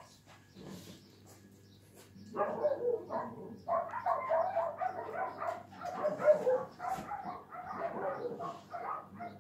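Small black long-haired dog barking in a quick, continuous run of short barks, starting about two seconds in.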